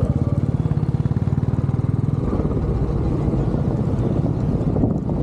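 Royal Enfield motorcycle engine running with a fast, even exhaust beat; the beat shifts slightly about two seconds in.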